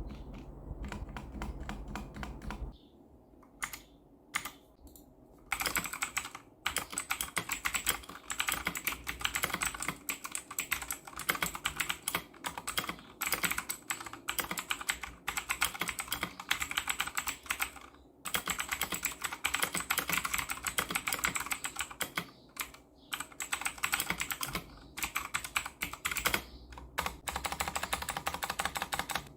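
Typing on a Redragon Fizz mechanical keyboard fitted with a mix of Akko CS Sakura switches and Outemu Blue switches. A short run of keystrokes is followed by a few scattered key presses, then fast continuous typing from about five seconds in, with brief pauses.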